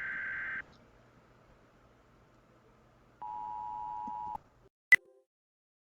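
Emergency Alert System signals: the tail of a buzzing SAME digital data burst cuts off about half a second in. After a pause, the steady two-tone EAS attention signal (853 and 960 Hz together) sounds for about a second, followed by a single short click.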